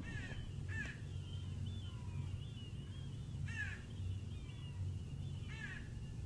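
Wild birds calling: a few short calls, each sliding down in pitch, spaced a second or more apart, with fainter chatter between them, over a steady low hum.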